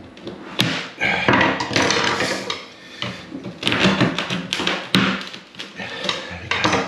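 Thin metal blade scraping and rasping in repeated strokes along the grout and silicone joint between a ceramic wall tile and the shower tray, with a couple of sharp clicks of metal on tile. It is working the bottom row of tiles loose for removal.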